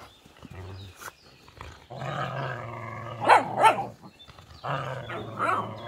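Whippets play-fighting: two long play growls, the first broken by two sharp yips in quick succession, the second rising into a brief yelp.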